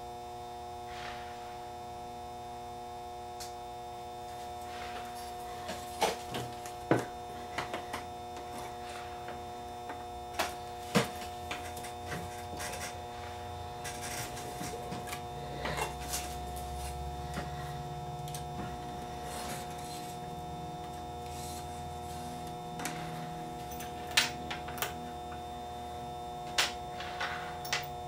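Scattered small clicks and knocks of metal parts being handled inside a Teac A3340 reel-to-reel tape deck while its pinch roller assembly is worked on, over a steady electrical hum.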